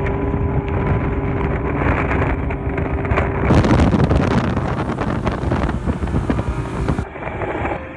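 Bass boat's motor running at speed across open water, a steady drone under wind rush on the microphone. The wind buffeting grows much louder about halfway through, then cuts off suddenly about a second before the end.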